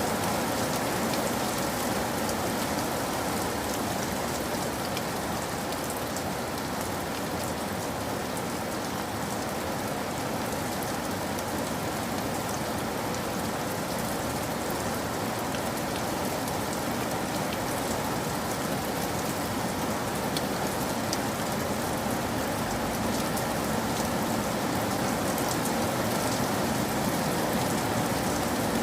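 Steady rain falling, a constant hiss with fine scattered drop ticks.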